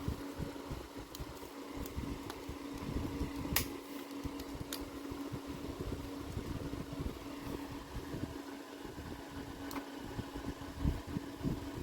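A steady low hum with a few light, sharp clicks scattered through it, the small plastic clicks of keyboard keycaps and butterfly clips being handled.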